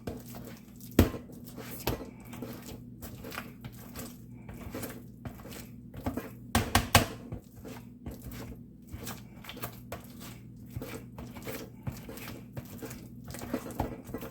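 Kitchen utensil working a pot of buttery mashed potatoes loosened with milk: irregular clicks and knocks against the pot with some scraping, a louder flurry of knocks about halfway through.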